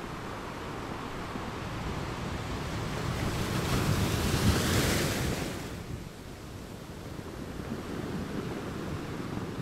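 Waves washing: a steady rush of water that swells to a peak about halfway through and then recedes.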